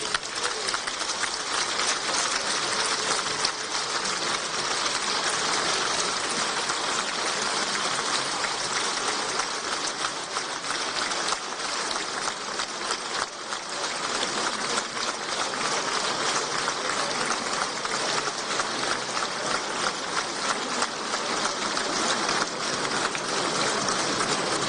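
Long, steady applause from a large crowd of parliament members, many hands clapping at once.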